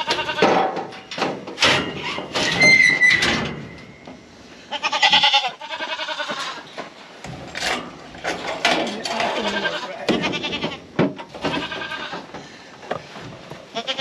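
Kiko goats bleating several times in quavering cries, mixed with sharp clanks and rattles of a metal wire-panel gate and crate as a buckling is pushed onto the livestock scale and the gate is shut.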